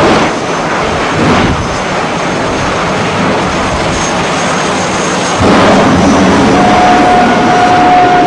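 Jet engine in the bed of a Volkswagen split-screen pickup running loud on a drag strip start line, surging as it puffs flame in the first second or so. At about five and a half seconds it goes up to full thrust for the launch, and a steady whine comes in over the noise soon after.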